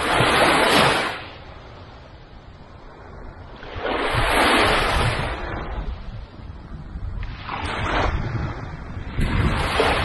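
Small, gentle waves breaking and washing up a sandy beach. There are about four washes of surf a few seconds apart, each lasting a second or two.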